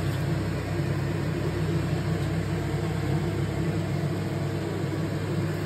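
Steady machine hum with an even hiss over it, in a kitchen where a chicken breast is boiling in a pan of water on a gas burner.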